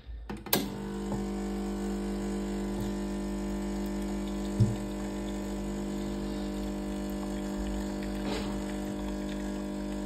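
MiiCoffee Apex espresso machine's pump running with a steady hum as water flows from the brew group into a cup, its flow throttled by the brew-circuit setscrew to about 4 ml per second. It starts with a click about half a second in.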